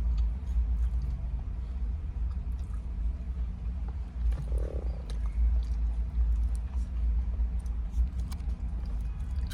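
A steady low rumble with scattered small clicks and rustles of eating and food packaging, and a brief low hum about four and a half seconds in.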